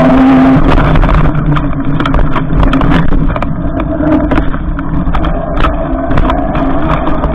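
Electric bike riding through snow: the motor's whine wavers up and down in pitch over the rush of tyres and wind. From about a second in, short knocks and rattles come as the bike goes over snow ruts.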